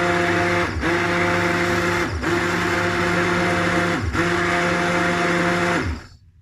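Electric blender motor running through a smoothie of fruit and herbs. Its speed dips briefly three times and recovers. About six seconds in it is switched off and winds down.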